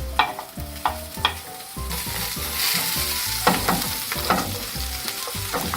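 Chopped garlic and red pepper sizzling in a hot frying pan, being stirred, with several short scrapes of a cooking utensil against the pan. The sizzle gets louder about two seconds in.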